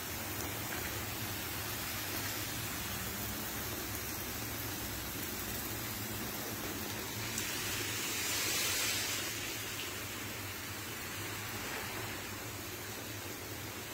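Steady hiss of water spraying from greenhouse irrigation over seedling trays, growing louder for a couple of seconds about eight seconds in.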